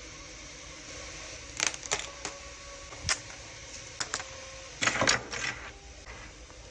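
Irregular sharp clicks and clacks of hard plastic over a steady fan-like hiss, with a denser run of clacks near the end.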